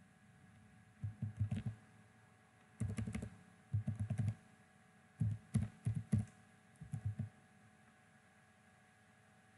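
Computer keyboard typing in several short runs of quick keystrokes.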